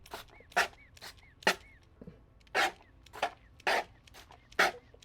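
A small Nerf Super Soaker toy water gun firing a rapid series of short, hissing squirts, about two a second and roughly ten in all.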